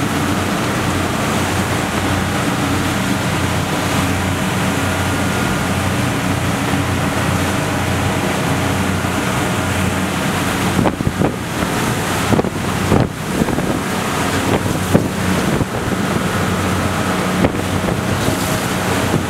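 Steady drone of a boat's engine under a constant wash of wind and water noise. From about halfway through, gusts buffet the microphone in uneven bursts.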